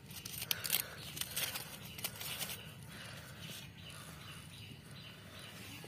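Quiet woodland ambience: brief rustling and crackling of dry leaf litter and twigs during the first couple of seconds, with faint chirping repeating throughout.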